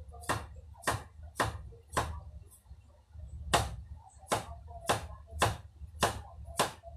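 Knife chopping on a cutting board in a steady rhythm, about two strokes a second, with a short pause about a third of the way through.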